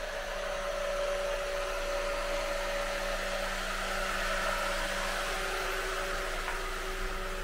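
Steady mechanical whirring hum of a running machine, with a few steady tones beneath it.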